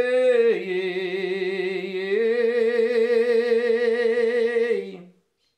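A man singing a long wordless note a cappella with a wavering vibrato, part of a sertanejo toada. The note steps down about half a second in, climbs back about two seconds in, and ends about five seconds in.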